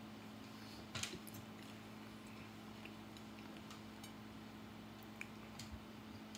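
A man chewing toasted bagel: a few soft mouth clicks and a brief crunchy crackle about a second in, over a steady low hum in a quiet room.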